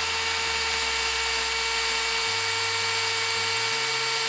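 Bauer 20V cordless drill motor running at a steady whine, turning a 1/4-inch bit into wood under light pressure. About three seconds in, the sound turns into a rapid, uneven pulsing as the bit bites.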